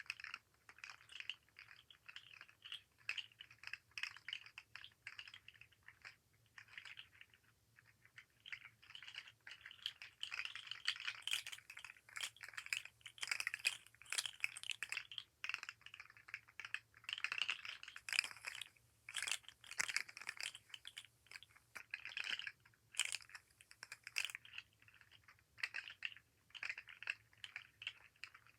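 Articulated fidget slug toy, its jointed segments clicking and rattling against each other as it is flexed and wiggled in the hand: a dense, uneven patter of small clicks that thins briefly around seven seconds in and is busiest in the middle.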